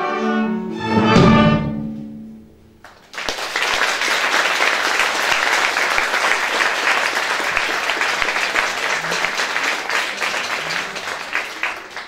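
An orchestra with strings ends a piece: a held chord, then a loud final accent about a second in that rings away. About three seconds in the audience breaks into applause, which carries on and drops away near the end.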